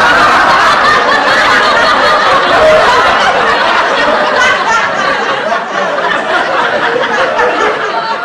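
Loud, unbroken human laughter, easing slightly over the last few seconds.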